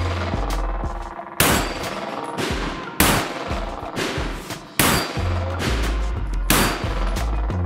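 Semi-automatic pistol fired in slow single shots, four shots about one and a half to two seconds apart. Background music with a heavy bass runs under them.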